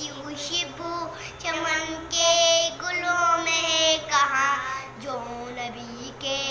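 A child's voice singing a naat, an Urdu devotional song, in sung phrases with long held notes that waver in pitch, broken by short pauses.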